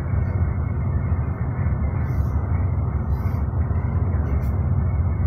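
Steady low rumble inside a Mercedes-Benz Travego coach cruising at highway speed: engine and tyre noise in the cabin.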